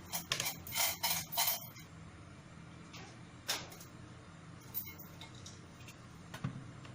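A quick run of sharp clicks and taps in the first second and a half, then a few single clicks, over a steady low hum.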